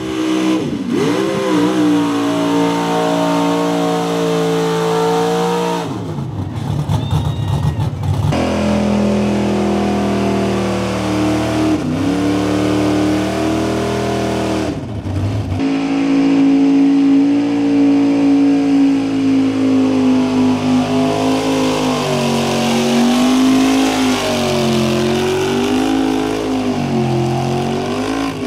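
Lifted mega-truck engines revving hard under load while pulling a weight-transfer sled in a wheelstand, the engine pitch swinging up and down as the trucks bog and rev. Several runs are cut together, so the engine note changes abruptly a few times.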